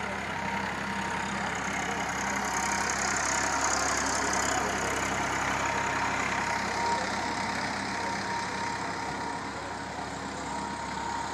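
New Holland tractor's diesel engine running steadily, growing a little louder a couple of seconds in and easing off again later.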